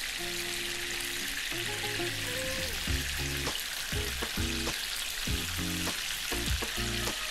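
Kingklip fish steaks sizzling steadily as they shallow-fry in hot oil in a pan, with background music over it.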